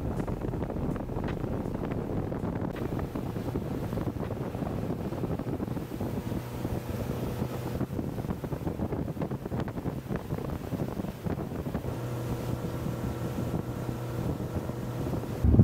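Boat engine running steadily while under way, with wind buffeting the microphone and water rushing past the hull.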